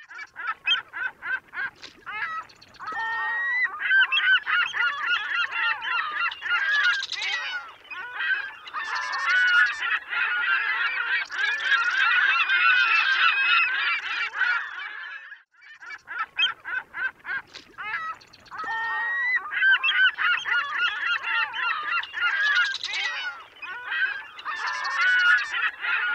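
Many waterbirds in a nesting colony calling at once in a dense, overlapping clamour. Series of short repeated calls build into a continuous chorus, once near the start and again after a brief break about fifteen seconds in.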